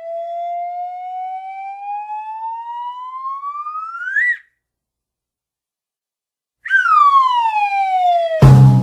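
Cartoon sound effects: a whistle tone glides steadily upward for about four seconds and cuts off. After a short silence, a whistle glides downward and ends in a heavy low thump, the classic cartoon fall and landing.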